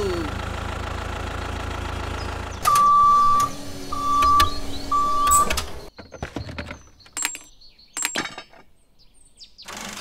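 Engine idling sound effect dubbed onto a toy tractor: a steady low rumble that stops after about three seconds. Then three short electronic beeps at one pitch, about a second apart, followed by a few scattered clicks and knocks.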